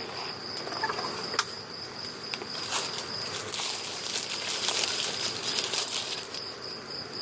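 Crickets singing in a steady high trill, with close rustling, crinkling and a few small clicks of things being handled.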